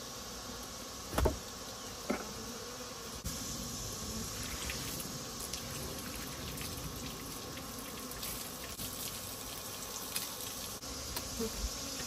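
Honeybees from an aggressively defensive colony buzzing in flight, with soapy water being poured and splashing over the hive frames. There is a sharp knock about a second in, from the hive tool against the wooden box, and a lighter one a second later.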